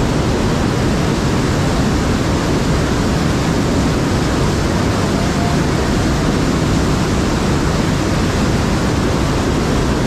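River water rushing through a cascade in a narrow rock gorge: a loud, steady rush of whitewater.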